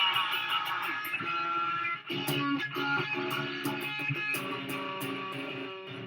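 Electric guitar, a Fender Stratocaster through a Marshall amp, played with ringing sustained notes and chords. The sound drops briefly about two seconds in, then new notes are picked.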